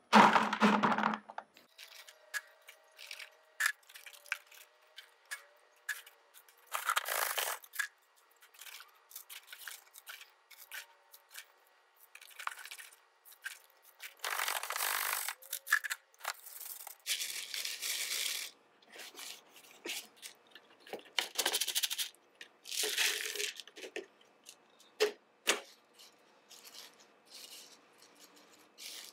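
Dry lamproite gravel and dirt poured from a plastic bag into a wire-mesh sifting pan, in several separate pours that rattle and hiss onto the screen, with the bag rustling. Smaller clicks and scrapes follow near the end as gloved hands work the gravel in the pan.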